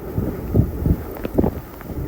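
Hurricane-force wind gusting hard against the microphone: irregular low buffeting blasts that come and go several times.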